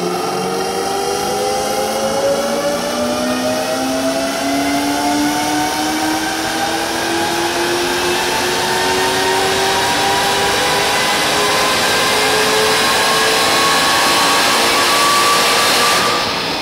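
Car engine running under load on a chassis dynamometer, its pitch climbing slowly and steadily through the rev range. Near the end the throttle is lifted and the sound drops off.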